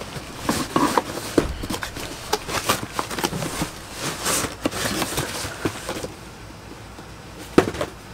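Cardboard box and packaging rustling, crackling and scraping as a cordless chainsaw is handled and lifted out of its shipping box, followed by a single sharp knock near the end.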